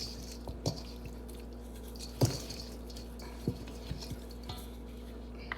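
A few scattered light clicks and taps from handling spice shakers and kitchen items while seasoning, the strongest about two seconds in, over a steady low electrical hum.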